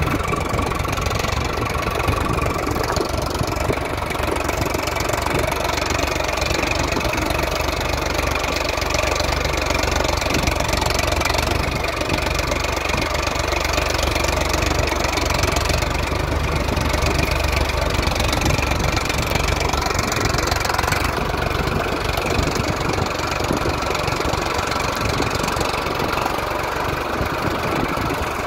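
Tractor diesel engine running steadily with a clattering knock, its note shifting slightly about two-thirds of the way through.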